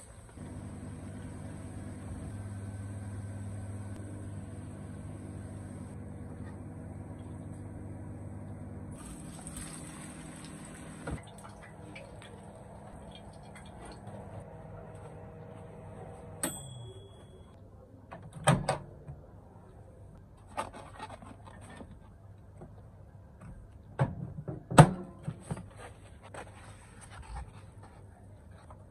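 Microwave oven running with a steady hum, then winding down with a falling pitch and a short beep about sixteen seconds in. After that come scattered knocks and clatter of dishes and food containers being handled.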